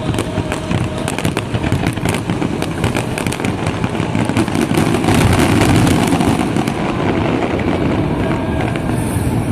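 Aerial fireworks display: a rapid run of pops and bangs from bursting shells, thickening into a dense, louder rumble of overlapping bursts about halfway through, then thinning out.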